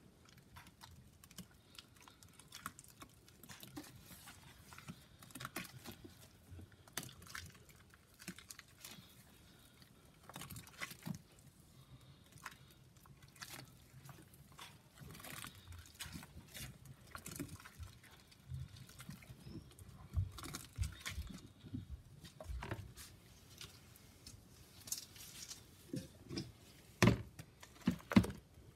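Wet Comet cleanser paste (crumbled Comet brick mixed with Pine-Sol) being mashed and kneaded by a gloved hand in a stainless steel sink: faint, irregular squishing, crumbling and scraping. Near the end, a few louder knocks and thumps as the paste is tipped into a mesh strainer.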